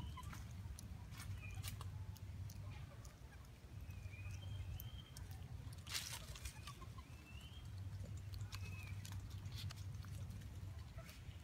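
Faint, short, high chirping calls every second or two, over a low rumble, with scattered clicks and one sharper click about six seconds in.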